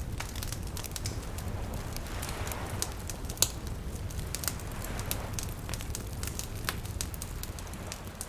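Wood fire crackling, with many irregular sharp pops over a low rumble, and one louder snap about three and a half seconds in. Small waves lapping gently underneath in slow soft swells.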